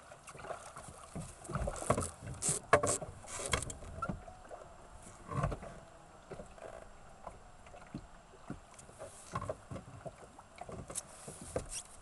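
Irregular splashing and knocks as a hooked largemouth bass is brought alongside a bass boat and lifted out by hand, the loudest cluster about two to three seconds in.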